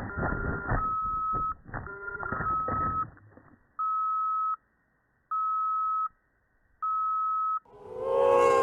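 Muffled noise and knocks that die away over about three seconds, followed by an electronic beeper sounding one steady tone about every second and a half, each beep under a second long.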